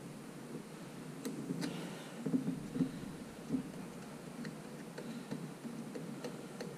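Scattered light clicks and taps of a small adjustable wrench working loose the threaded posts that hold a circuit board down, over a low steady hum.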